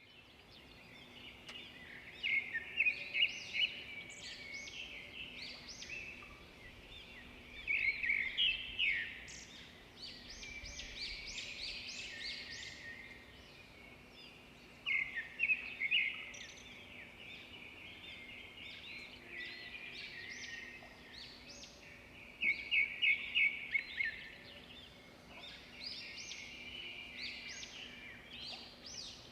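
Songbirds singing: loud phrases of rapid repeated chirps come every six or seven seconds, with quieter twittering between them.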